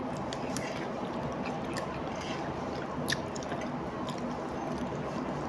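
A person eating laksa noodles with chopsticks: chewing and small wet mouth sounds, with a few short, sharp clicks scattered through.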